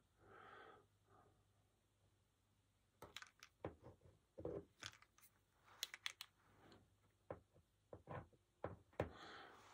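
Near silence broken by faint, scattered taps and small scratches of a paint pen's tip on a painted tile as letters are drawn, for the last two-thirds or so.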